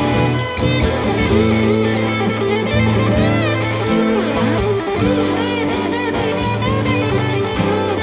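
Band playing a song on guitars: strummed acoustic guitars and an electric guitar over a steady bass line, with a higher melody line sliding up and down in pitch.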